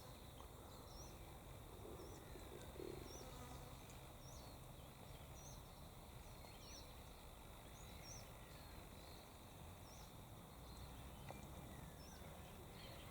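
Near silence with faint outdoor background, over which a small bird's short, high chirp repeats about once a second.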